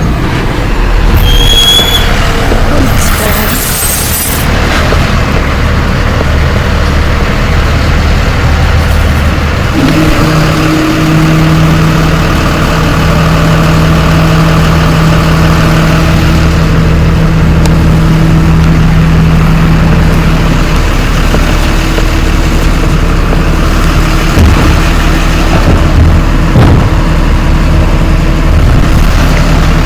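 Garbage truck's diesel engine running nearby with a steady low rumble and hum. There is a brief high squeal in the first few seconds.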